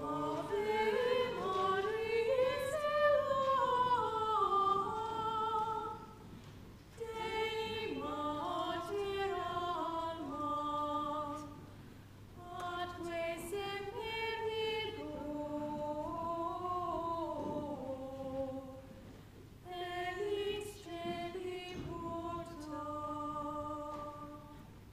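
Unaccompanied voices singing one melodic line in sacred style, phrase by phrase with short pauses between phrases.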